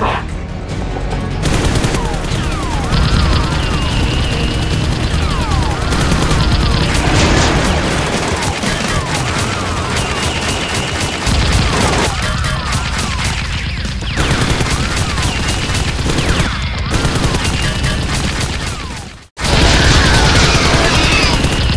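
Bursts of rapid gunfire sound effects over dramatic action music, breaking off for a moment near the end and starting again.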